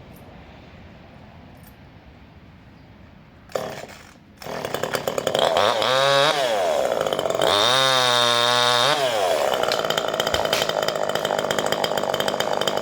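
Two-stroke chainsaw firing up about three and a half seconds in, then revving up and down twice and running on steadily at high speed, cutting pine branches.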